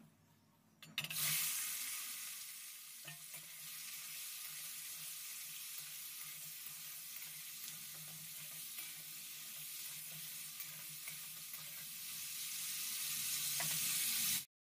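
Food hitting hot oil in a pan about a second in and sizzling, loud at first and then steady, with a few light clinks of a spatula; the sizzle grows a little and stops abruptly near the end.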